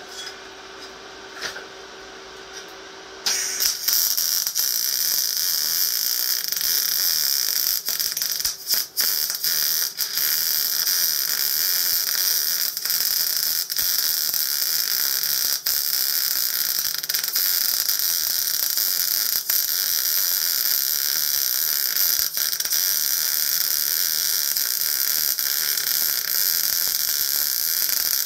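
MIG (GMAW) welding arc running on steel: a steady crackling hiss that starts a few seconds in, after a quiet low hum, with a couple of brief breaks in the arc a few seconds later.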